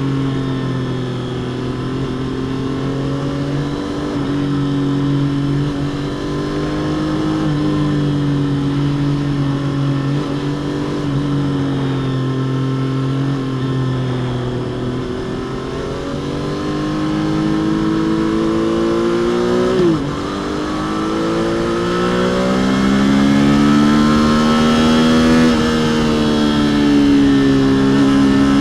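Triumph Trident 660's inline three-cylinder engine through its stock exhaust, under way. It holds steady revs for about the first fifteen seconds, then pulls with the pitch rising, dips sharply about 20 seconds in as the revs fall, and climbs again, louder, to the end.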